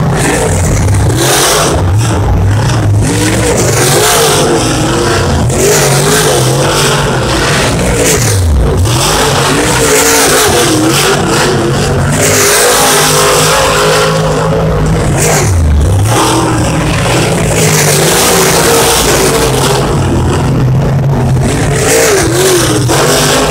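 Dirt late model race cars' V8 engines racing around the track, loud and continuous, with several engines overlapping. A car passes close by about eight seconds in and again near sixteen seconds, its pitch dropping sharply as it goes by.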